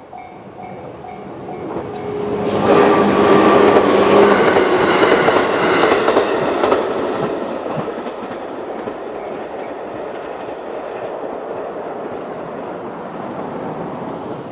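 JR 211 series electric train passing over a level crossing. Its rumble and wheel clatter swell up a couple of seconds in, are loudest for about five seconds, then ease to a steady rumble as the cars run past. The crossing's warning bell rings at first, repeating, and is lost under the train about two seconds in.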